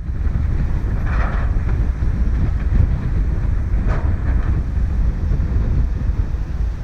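Strong wind buffeting the microphone: a loud, gusty low rumble with no clear tone, with brief brighter gusts about a second in and again about four seconds in.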